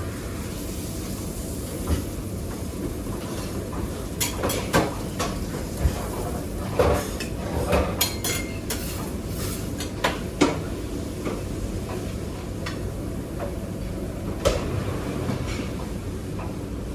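Pans, plates and utensils clanking now and then in a busy restaurant kitchen, a dozen or so short knocks over a steady background noise.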